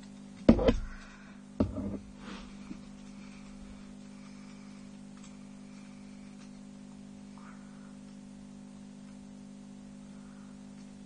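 Plastic Lego parts of a small hand-held ellipsograph clattering: two loud knocks about half a second and a second and a half in, then a few lighter clicks, over a steady low electrical hum.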